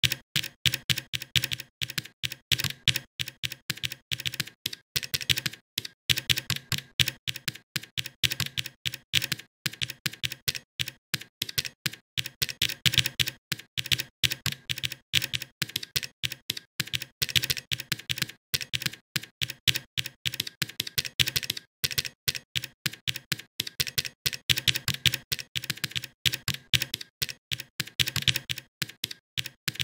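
Computer keyboard being typed on: a quick, uneven run of key clicks with short pauses between bursts.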